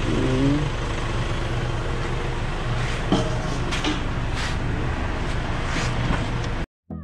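Steady low motor hum over background noise at a fuel pump, with a couple of light clicks partway through; it cuts off abruptly near the end.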